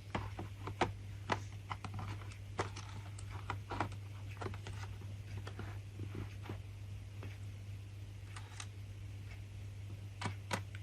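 Irregular small clicks and taps as an SSD in its drive frame is handled and fitted back into a Dell Latitude 3540 laptop's drive bay, most of them in the first half and a few more near the end, over a steady low hum.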